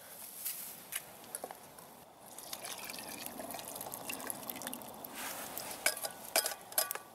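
Stock poured from a small metal pan into a pot of stew: a steady trickling splash from about two seconds in, with a few sharp metallic clinks of pan and spoon against the pot near the end.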